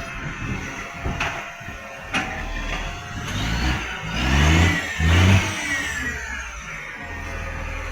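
Garbage truck engine revving up, with two loud surges in the middle and a high whine rising along with it. The truck has an exhaust leak.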